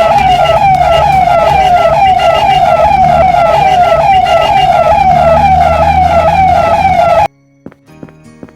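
Police car siren sound effect warbling rapidly up and down, about three times a second. It cuts off suddenly about seven seconds in, leaving faint plinking music.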